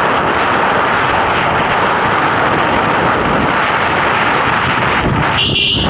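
Loud, steady rushing noise, like wind and travel noise on the microphone. A short high-pitched tone cuts in briefly near the end.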